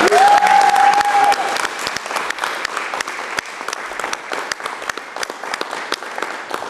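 Audience applauding, many hands clapping, the clapping slowly thinning out. A single voice calls out one long held note over it in the first second or so.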